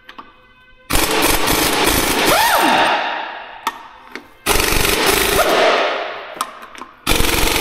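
Impact wrench hammering in three bursts of about two seconds each, a rapid rattle of blows while loosening fasteners during the teardown of a final drive's planetary gear set.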